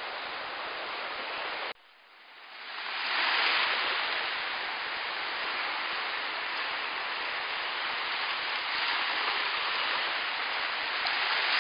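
Surf breaking along a sandy shore, a steady rushing noise. It drops out suddenly just under two seconds in and swells back over the next second or so.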